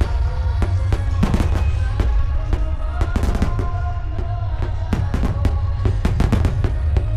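Phoenix fireworks display: many quick shell bursts and crackles going off over music played through loudspeakers, with a heavy low rumble underneath.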